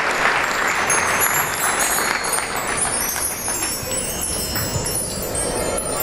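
Crowd applause fading out as a mark tree (bar chimes) is swept. A run of high, tinkling bell tones starts about a second in.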